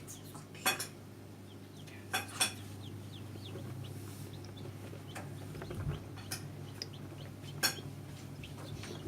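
Newly hatched chicks peeping in an incubator: many short, high, downward-sliding peeps. There is a steady low hum underneath and about five sharp clicks or clinks scattered through.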